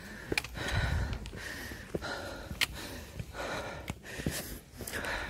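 Hard breathing of a hiker climbing steep rock: several heavy breaths in and out, about one a second, with a few sharp clicks among them.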